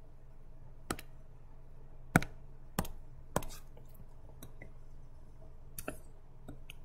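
A stylus tapping and writing on a tablet screen gives about five sharp, separate clicks with a few fainter ticks near the end. A faint steady low hum runs underneath.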